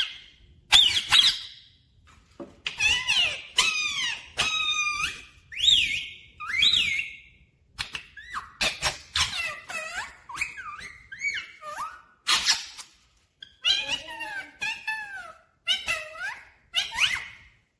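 Rose-ringed (Indian ringneck) parakeet calling: a rapid series of short, squeaky calls that slide up and down in pitch, with short pauses about two seconds in and near the middle.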